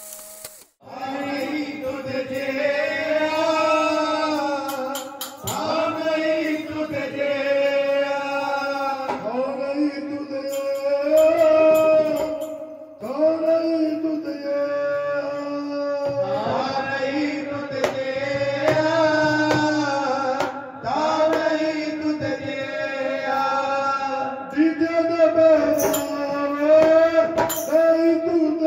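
A group of Sikh men singing a devotional shabad (kirtan) in unison, with long held notes over a steady drone. Near the end the metal jingles of a chimta (fire-tong jingle instrument) and a hand drum join in.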